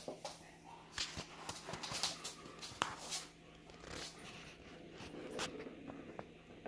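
German Shepherd and ginger kitten playing on a hardwood floor: irregular taps, clicks and scuffs of paws and claws on the wood, with the dog sniffing close by.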